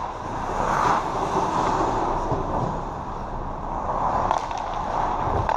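Indoor ice rink ambience during hockey play: a steady echoing hum with skates scraping on the ice, a little louder about a second in. A few faint clacks come about four seconds in and near the end.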